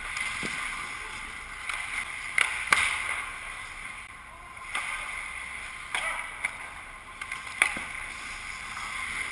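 Ice hockey skates scraping and carving on the rink ice in a steady hiss, broken by several sharp clacks of sticks and puck, the loudest about three seconds in and again toward the end.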